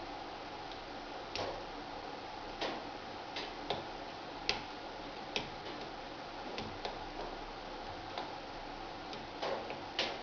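Wood fire crackling in a wood-burning stove: irregular sharp pops, roughly one a second, over a steady soft hiss.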